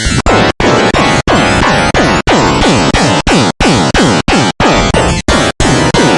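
Dense 'dark MIDI' music: a loud wall of many synthesized notes sounding at once, starting abruptly from silence and broken by about a dozen brief silent gaps.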